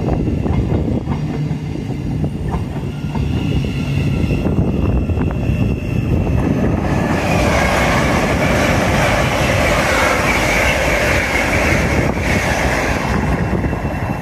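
Great Northern Class 717 electric train running along the platform, its wheels clicking over the rail joints. Then an LNER Azuma high-speed train passes close by with a loud rushing noise from about seven seconds in, easing off about thirteen seconds in.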